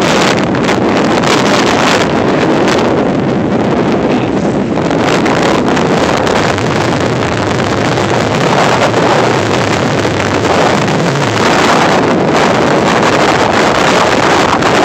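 Wind buffeting the camera microphone in a loud, steady rumble and hiss.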